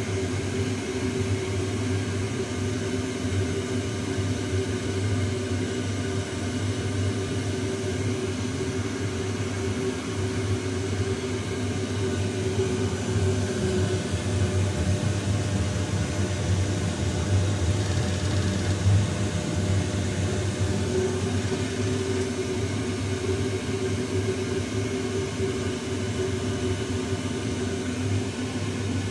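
Waste-oil boiler burner running: a steady whirring hum from its fan and flame, unbroken throughout.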